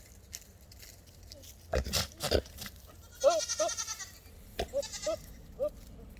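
Goats making short, monkey-like calls, about five quick ones that each rise and fall in pitch, in the second half. A few sharp knocks come about two seconds in.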